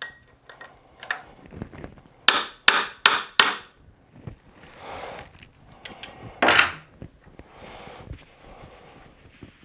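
A hammer striking four times in quick succession, about three blows a second, then once more a few seconds later, with softer knocks and handling of tools in between.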